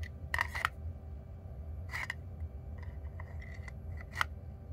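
Sharp plastic clicks and knocks from handling the black plastic magnetic charging base of a Pro'sKit SI-B166 battery soldering iron, about five distinct clicks spread through, the loudest about half a second in and about four seconds in.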